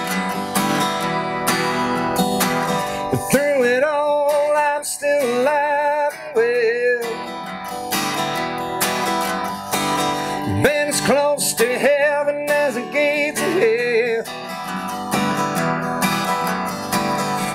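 Acoustic guitar strummed and picked through a country song between sung lines. A held, wavering melody line with vibrato comes in over the guitar twice, once about three seconds in and again around eleven seconds.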